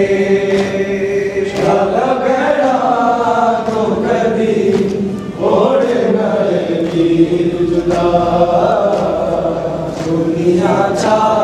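A group of men chanting a nauha, a Shia mourning lament, together, with matam: open-hand strikes on the chest landing about once a second.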